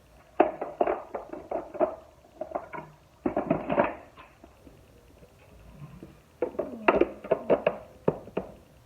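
Irregular clusters of sharp plastic clicks and knocks as a vacuum cleaner's parts are handled and fitted, such as its filter being pushed back into place.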